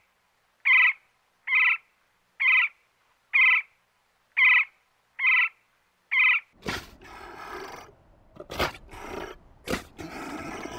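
Pileated woodpecker calling: a series of about seven short, evenly spaced single notes, a little under a second apart. About two-thirds of the way in this gives way to rough, noisy calls from a sea lion pup.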